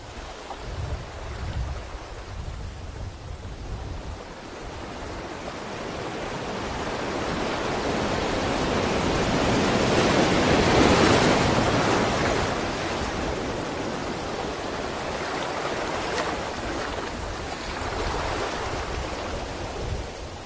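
Sea waves surging and washing on the shore: a continuous rush of surf that swells to a peak about halfway through and then recedes, over a low rumble.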